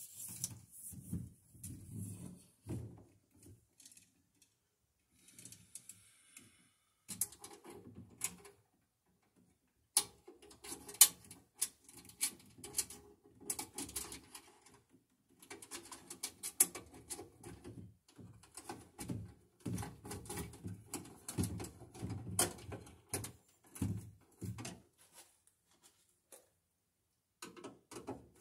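Handling noises as 10/3 cable is pulled and fed into a metal subpanel: rustling with irregular sharp clicks and knocks, the sharpest about eleven seconds in, and brief quieter pauses.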